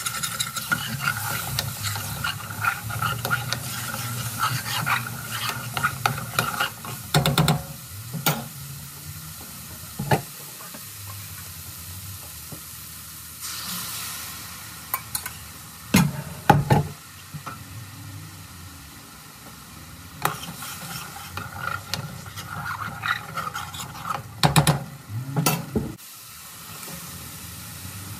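Curry sizzling in a pan as it is stirred, with the spoon knocking against the pan now and then.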